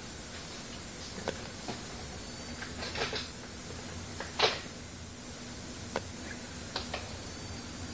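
Steady hiss with a handful of short, scattered clicks and light taps, the loudest about four and a half seconds in. The clicks are handling noise from a hand-held phone.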